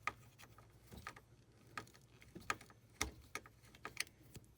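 Light, irregular clicks, roughly two a second, from a driver working a Torx screw loose in a plastic steering-column cover.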